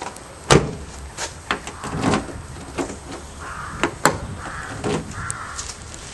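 A car door slammed shut about half a second in, followed by lighter clicks and footsteps on block paving.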